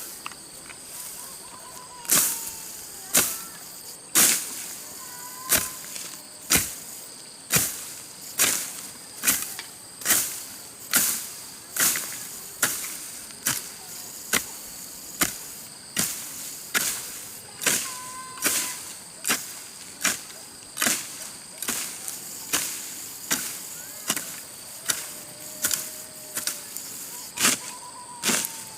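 A hand tool chopping into grass and soil in a steady rhythm, about one sharp strike a second, starting about two seconds in.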